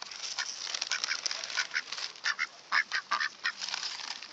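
A flock of ducks and American coots crowding in to be hand-fed: a busy run of short raspy calls mixed with quick clicking pecks.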